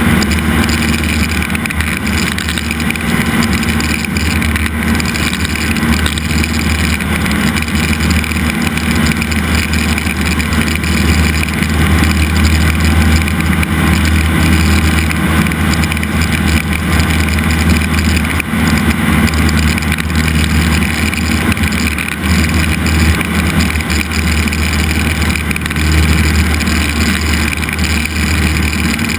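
Cessna 172's piston engine and propeller running steadily in flight, a constant low drone with rushing air, heard inside the cabin.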